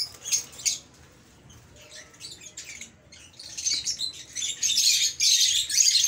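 Lovebirds calling: a few sharp chirps in the first second, then from about halfway a dense, high-pitched chatter that grows louder.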